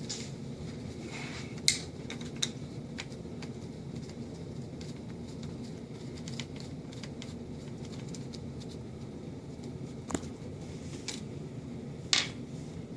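Scattered small clicks and taps of a screwdriver and small metal parts being handled while a screw is taken out of a steering column, over a steady low hum. The sharpest clicks come about a second and a half in and again near the end.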